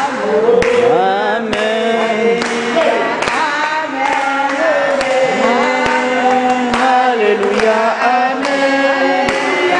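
A group of voices singing a hymn together, the notes held and sliding, with short sharp knocks scattered through the song.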